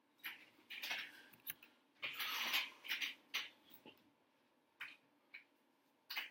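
Clothing rustling close to the microphone: a run of short scrapes and rubs in the first few seconds, then a few scattered clicks. No clipper buzz is heard.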